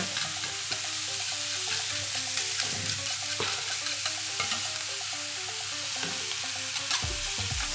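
Bell pepper strips and onion sizzling as they fry in a hot stainless steel pan, with a few clicks of the tongs against the pan. Soft background music plays underneath.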